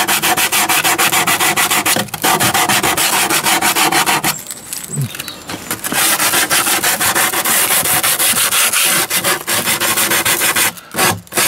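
Sandpaper wrapped around a wooden block rubbed back and forth in rapid strokes along the sawn edge of a plywood board, sanding off a leftover corner. The strokes pause briefly a little over four seconds in, then carry on.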